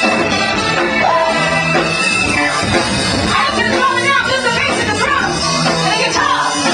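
Live soul band playing: a woman sings into a microphone over drums, keyboard and horns.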